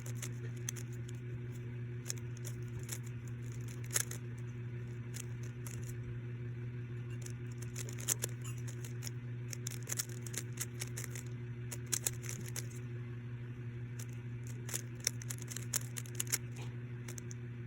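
Rubik's cube being turned by hand: quick, irregular plastic clicks as the layers are twisted, over a steady low hum.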